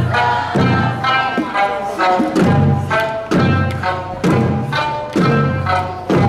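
Eisa drumming: hand-held Okinawan taiko drums struck together about once a second over a recorded Okinawan folk song.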